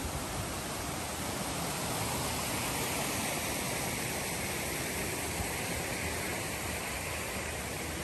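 Steady rush of a rocky forest creek running over stones.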